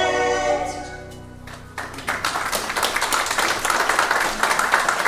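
The last held chord of a gospel vocal group's song fades out in the first second. About two seconds in, the congregation breaks into steady applause.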